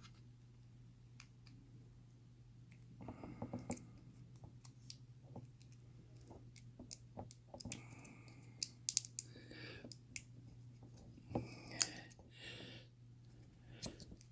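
Small metal tools clicking and scraping irregularly against a Kryptonite padlock as a shim is worked into it, with clusters of taps around four seconds in and again near the end, over a steady low hum.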